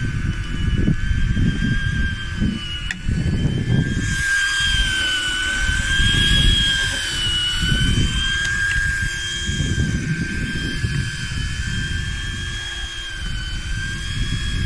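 A steady, high mechanical whine that wavers slightly in pitch, with wind buffeting the microphone in gusts.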